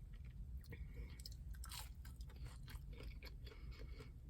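A person chewing a mouthful of chicken McNugget, with small irregular crunches, over a low steady rumble.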